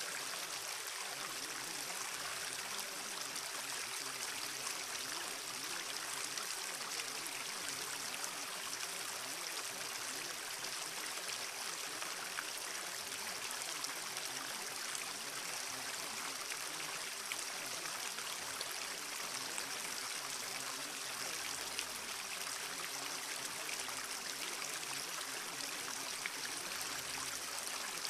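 Steady flowing-stream water sound, even and unbroken, with faint sustained tones underneath.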